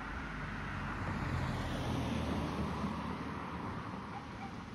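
Road traffic: a car passing on the road, its engine and tyre noise swelling about a second in and easing off toward the end.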